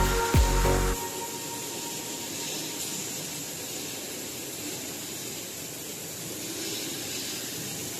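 Steady hiss and whir of a running woodworking cross-cut saw machine, with no distinct cuts heard, after background music stops about a second in.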